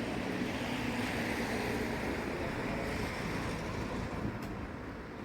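Steady road traffic noise, a vehicle's low hum swelling over the first couple of seconds and then slowly fading.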